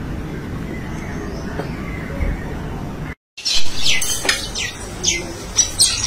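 A steady low background noise, then, after a sudden cut, a flock of mynas calling loudly with many short, sharp, falling squawks and chatters.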